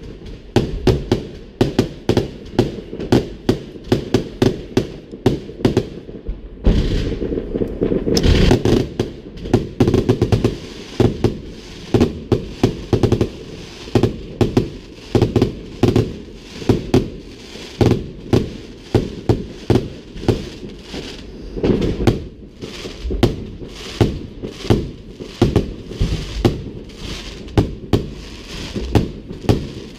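Fireworks display: a steady, rapid run of sharp bangs, about three a second, with a denser stretch of continuous booming and crackling about seven to nine seconds in.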